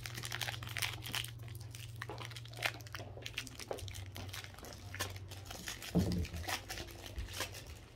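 Foil trading-card pack wrapper crinkling and tearing as it is pulled open by hand, in irregular crackles.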